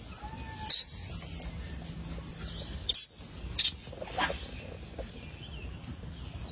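A baby monkey squeaking: a few short, high-pitched squeaks, one about a second in and a cluster around three to four seconds in, over a low steady background noise.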